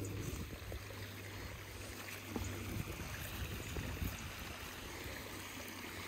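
Shallow stony stream running, with a low rumble of wind on the microphone and occasional soft thuds of a walking horse's hooves on grass.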